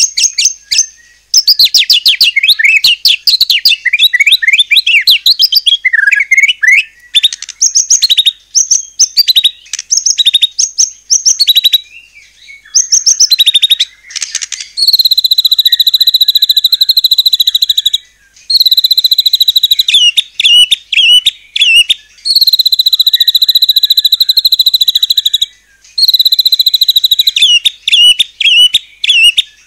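White-rumped shama (murai batu) singing loudly: a rapid run of varied trills and chattering phrases. From about halfway, long held whistles alternate with short quick trills.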